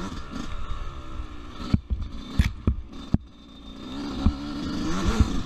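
Yamaha YZ125 two-stroke dirt bike engine running under the rider, its pitch easing off in the middle and rising again as the throttle opens near the end, with a few sharp knocks along the way.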